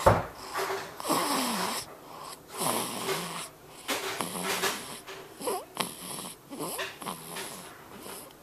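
Baby snoring pretty loud: a string of rasping breaths, some carrying a falling pitched note. A sharp knock right at the start.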